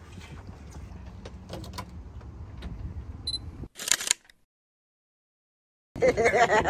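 A camera shutter click about four seconds in, preceded by a short high beep, then total silence. Before it, low deck noise with a faint steady hum and a few light knocks.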